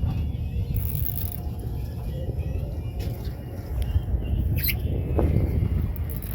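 Low, steady rumbling noise of wind and water on the microphone of an open fishing boat, with a brief sharp click or scrape about two-thirds of the way through.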